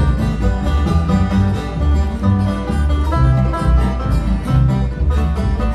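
Live bluegrass string band playing an instrumental break between sung verses of a slow song: upright bass notes under fast-picked acoustic string instruments.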